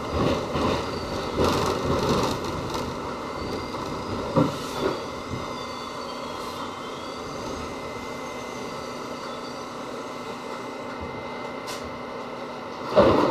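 R68 subway car braking into a station: wheels knocking and rumbling on the rails, with a faint wavering squeal as it slows, then settling into a steady hum once the train stands at the platform.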